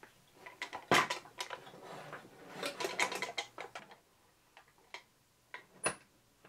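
Clicks and knocks of a Kenwood Chef food mixer's casing being fitted back together and handled: the loudest knock about a second in, a quick cluster around three seconds, then a few single clicks.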